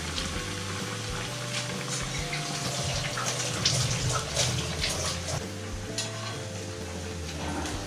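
Batter-coated bread pakoras deep-frying in hot oil in a steel kadhai: a steady sizzle with crackling pops, busiest in the middle.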